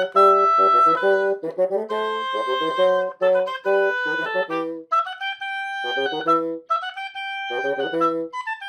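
Oboe and bassoon playing a lively, accented duet: the oboe carries the melody in short separated notes over a bassoon bass line, then holds a few longer high notes in the second half.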